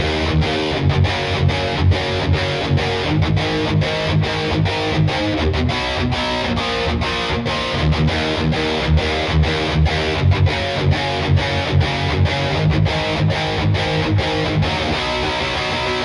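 Schecter Tempest Custom electric guitar played with a distorted tone, strummed and picked riffing in a steady rhythm of about four strokes a second.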